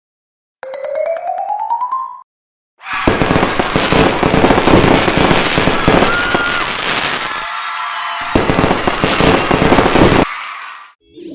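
Fireworks sound effect: a short rising whistle, then several seconds of loud, dense crackling and popping. The low end drops out briefly about eight seconds in.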